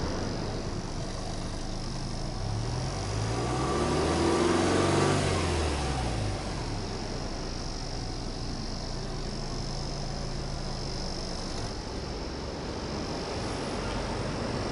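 Subaru Legacy 2.0 GT's turbocharged EJ20 flat-four exhaust, heard at the twin tailpipes, idling steadily. A few seconds in, the engine is free-revved once: it rises smoothly to a peak, then falls back to idle.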